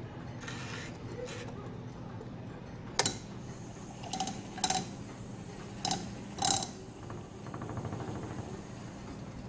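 Handling noises on a lab bench: a sharp knock about three seconds in, then four short clinks, over a steady low hum.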